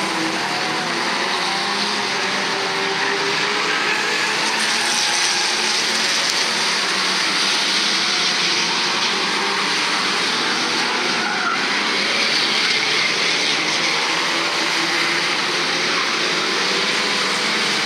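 A pack of old saloon stock cars racing round a short oval, several engines running at once in a steady mixed din.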